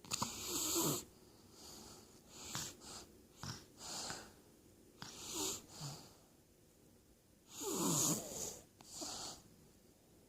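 A sleeping person snoring: a run of irregular snores and breaths, the loudest about a second in and again around eight seconds in.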